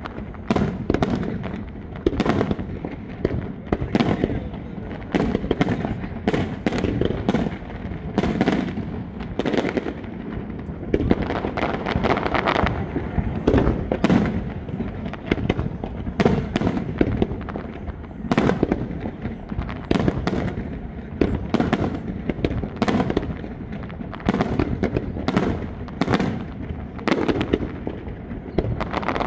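Aerial fireworks display: shells bursting in a continuous, irregular barrage of sharp bangs, often several a second.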